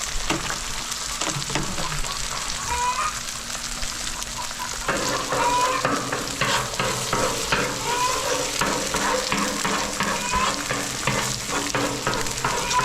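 Eggs sizzling on a hot flat-top griddle, with a metal spatula scraping and tapping on the steel as they are stirred. The sizzle grows fuller about five seconds in.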